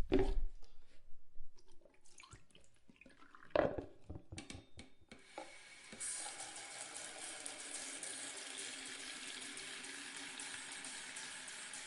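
A few knocks and clatters, then a bathroom sink faucet is turned on about six seconds in and water runs steadily into the basin.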